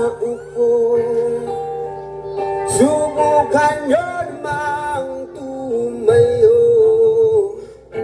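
A song with a singing voice played through a mobile-disco speaker stack during a sound check.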